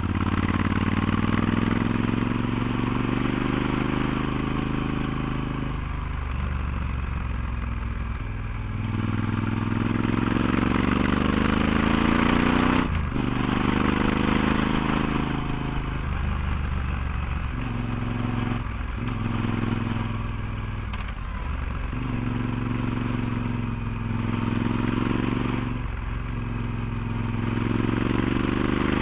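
Yamaha XT1200Z Super Ténéré's parallel-twin engine through a LeoVince slip-on exhaust with its dB-killer fitted, heard close to the exhaust while the bike climbs a twisty pass. The engine note rises again and again as the rider accelerates, with sharp breaks and drops where he changes gear or eases off. Wind rush runs underneath.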